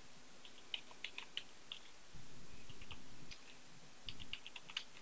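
Computer keyboard typing: two short runs of quiet keystroke clicks, the first about half a second in and the second near the end, with a low rumble lasting about a second in between.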